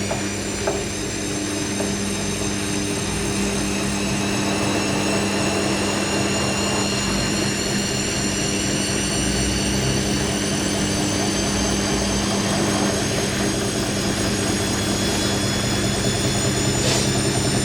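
Hoover NeXtra HNL3146 washing machine on an intermediate spin: the motor's whine rises slowly as the drum gathers speed, over a steady hum and rumble from the drum.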